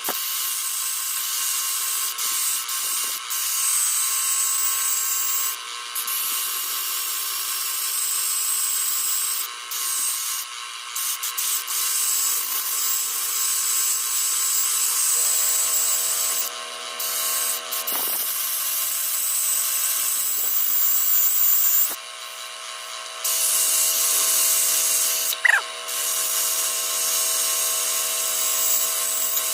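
Electric drill spinning an abrasive attachment against a workpiece, a steady grinding hiss with a faint high whine. It stops and restarts several times, and a low motor hum joins about halfway through.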